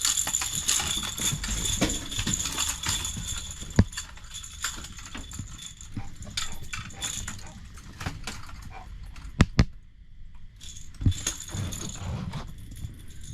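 Clicking and rattling handling noises on a boat with several sharp knocks, as a small blue catfish is unhooked and handled; a faint high steady whine runs through the first half.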